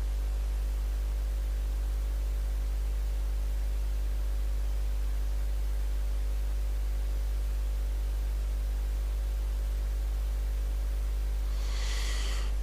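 Steady electrical mains hum over hiss: a low drone with a ladder of steady tones above it, unchanging throughout. A faint, soft hiss rises briefly near the end.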